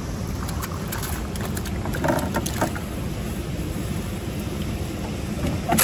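Steady rush of fast-flowing river water with wind rumbling on the microphone, and a few light clicks and splashes about two seconds in.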